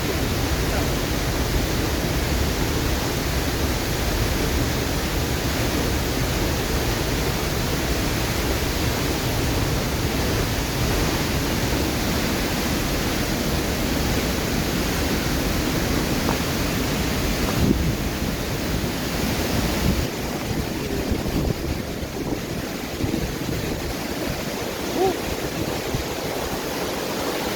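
Waterfall rushing: a steady, loud, even roar of falling water, its low rumble easing somewhat about two-thirds of the way through.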